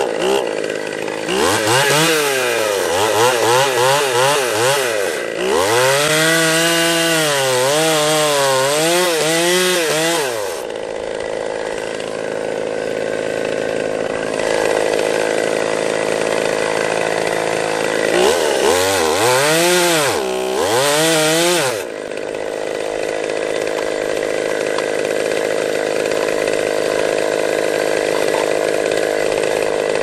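Two-stroke chainsaw cutting into a pine trunk during a felling cut, the engine's pitch dropping and rising over and over as it bogs and revs in the wood for the first ten seconds and again around twenty seconds in, with a steadier, somewhat quieter running sound in between and after.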